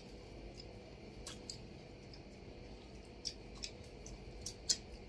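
Faint eating sounds from rice and chicken being eaten by hand: scattered small clicks and smacks of chewing and of fingers in the food on the plates, a few sharper ones near the end, over a low steady room hum.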